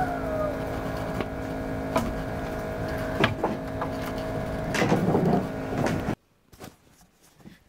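A steady mechanical hum made of several fixed tones, with a few sharp knocks through it. The hum cuts off suddenly about six seconds in.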